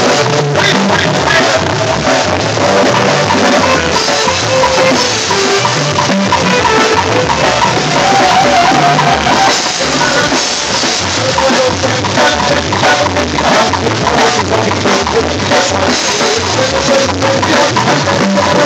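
Live band music played loud: a drum kit keeping a steady driving beat under keyboard and saxophone melody lines.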